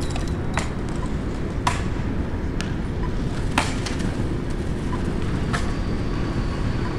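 Urban outdoor ambience: a steady low rumble of traffic, with five sharp clacks scattered through it.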